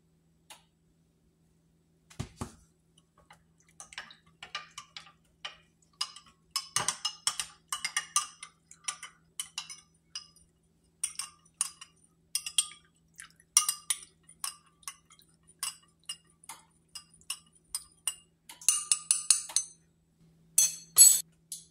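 A metal spoon stirring coffee in a glass mug, clinking against the glass again and again with a bright ringing tone, several clinks a second. A dull thump about two seconds in, and a few louder clinks near the end.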